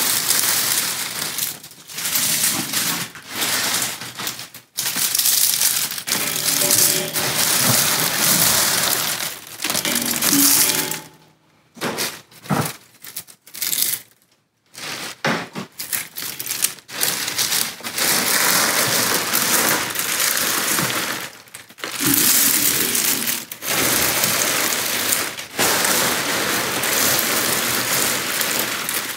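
Dried white sage stems and leaves crackling and the plastic bag crinkling as handfuls are pulled out, broken up and dropped into a perforated metal still basket. The sound comes in bursts, with a near-silent pause near the middle.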